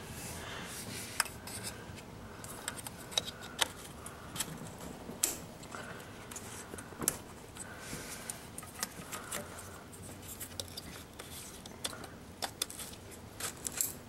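Plastic ignition-coil electrical connectors clicking as they are pushed onto the coils and their locking tabs pushed home, a scatter of short sharp clicks amid light handling noise.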